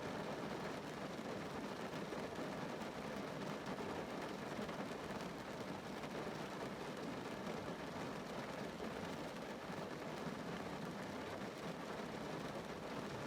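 Steady rain falling on a car's roof and windows, heard from inside the cabin.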